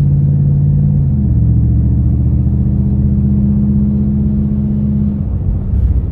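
A 1990 Chevrolet Camaro IROC-Z's 5.7-litre V8, breathing through SLP headers, running under way as heard from inside the cabin. The engine note drops in pitch about a second in, then holds steady.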